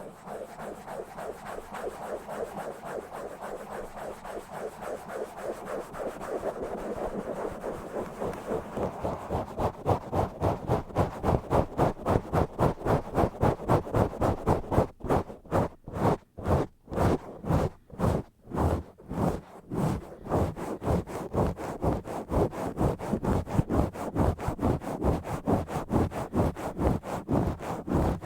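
Hand scratching and rubbing directly on a bare microphone in fast back-and-forth strokes, roughly three a second. The strokes grow louder and harsher about a third of the way in, break into separate strokes with short gaps in the middle, then run on steadily.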